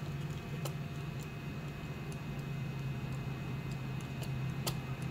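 Faint, scattered clicks and taps of small 3D-printed plastic chassis parts and wiring being handled by fingers, a sharper click near the end, over a steady low hum.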